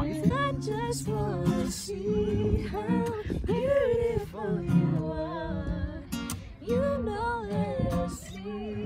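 Acoustic guitar played with a woman singing a slow, wavering melody over it.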